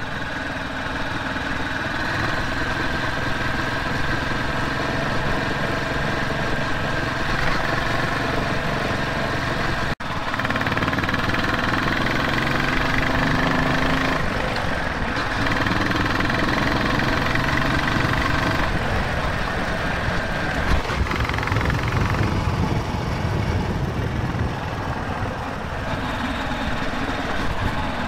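Royal Enfield Classic 350's single-cylinder engine running as the motorcycle is ridden, its note rising and dropping several times with throttle and gear changes.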